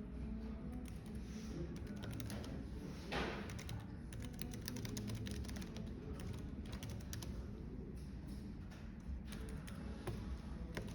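Typing on a computer keyboard, irregular runs of key clicks over a steady low cafe background murmur, with a brief swish about three seconds in.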